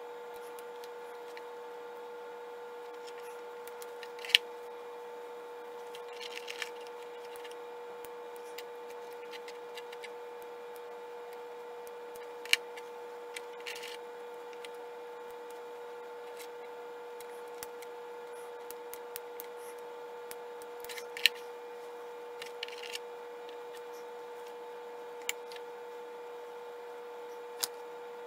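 A steady hum with two held tones, broken by scattered sharp clicks and taps, three of them louder than the rest: hand tools and pins being handled and set down on a plastic tray while a hide is pinned onto a taxidermy form.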